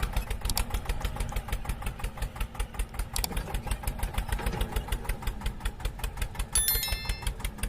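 John Deere 8360R tractor's six-cylinder diesel engine running with a steady low pulse.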